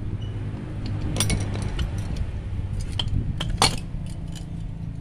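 Metal parts of an oilless compressor's aluminium motor housing clinking and clanking as they are handled and set down on a concrete floor, with a few sharp knocks, the loudest about three and a half seconds in. A steady low hum runs underneath.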